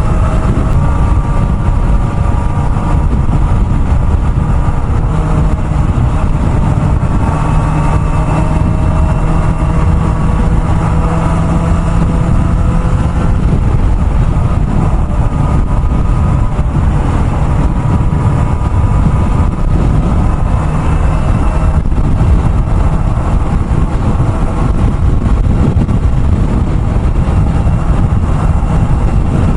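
Kawasaki ZX-4RR's inline-four engine running at steady highway cruising speed under heavy wind and road rumble. Its high engine tone drifts gently up and down.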